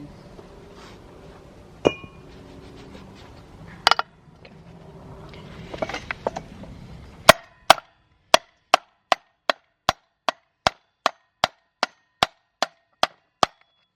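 A few scattered knocks and tool clinks, then about seven seconds in a steady run of sharp hammer blows, roughly two and a half a second, driving a stuck part of an old chainsaw loose during its teardown.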